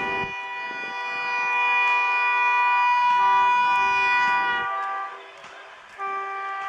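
WAP-4 electric locomotive's twin-tone horn sounding long blasts of two notes together. The horn breaks off about five seconds in and sounds again about a second later.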